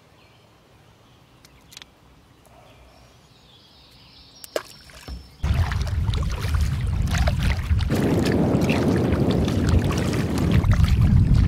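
A few faint clicks, then, about five seconds in, the loud rush of a canoe being paddled through choppy river water starts abruptly, with wind on the microphone.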